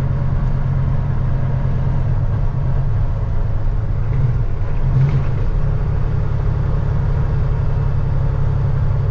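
Semi truck's diesel engine running steadily under way, heard inside the cab with road and tyre noise, swelling briefly about five seconds in.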